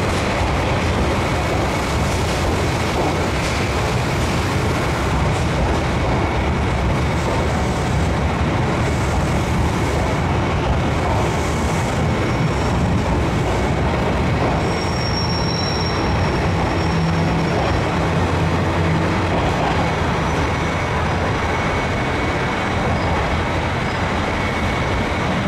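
A train at a station: a steady, loud rumble of running machinery with a faint, continuous high whine over it.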